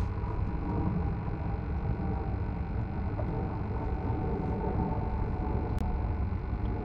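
Wind rumbling steadily on the microphone, with a faint steady hum above it and one small click near the end.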